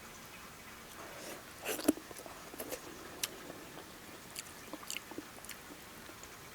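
Close-up chewing of chicken meat on the bone, with scattered wet mouth clicks and smacks. The loudest cluster comes about two seconds in.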